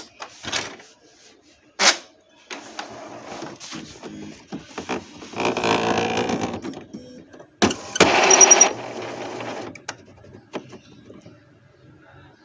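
Epson ink-tank inkjet printer's mechanism working in spurts: a few sharp clicks, then two stretches of whirring, clattering carriage and paper-feed movement, the second louder, before it settles into light clicks.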